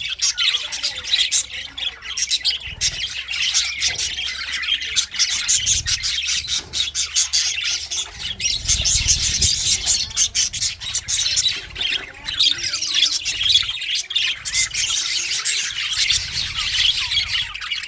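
Several English budgies (budgerigars) chattering and chirping without a break, many short, sharp calls overlapping.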